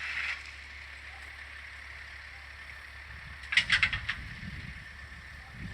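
Distant track-ballast work: a brief rattling clatter with a low rumble about three and a half seconds in, over a faint steady hiss.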